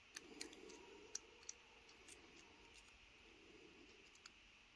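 Near silence, with a few faint, light clicks in the first second and a half, two fainter ones later and one near the end: a 30-thousandths feeler gauge blade being tried against the lifters, too thick to fit.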